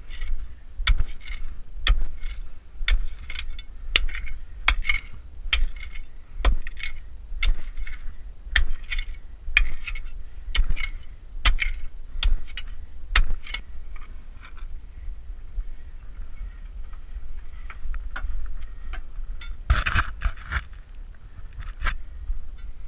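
Sharpened steel digging bar striking hard earth and gravel in a narrow mine tunnel, sharp metallic clinks about one and a half a second, stopping about two-thirds of the way through; a short burst of scraping follows near the end.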